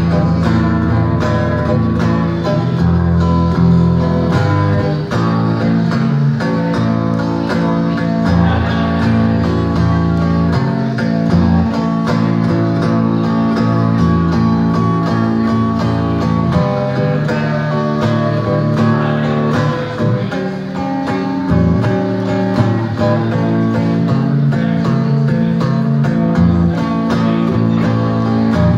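Electric guitar playing an instrumental blues break, no singing, over a low bass part.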